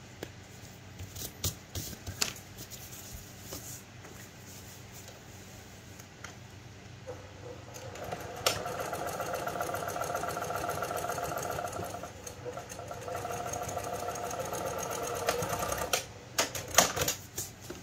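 Brother PQ1500SL straight-stitch sewing machine stitching a seam through a layered cloth pad, in two runs of about four seconds each with a short pause between. Scattered clicks and handling sounds come before the stitching, and a few sharp clicks come near the end.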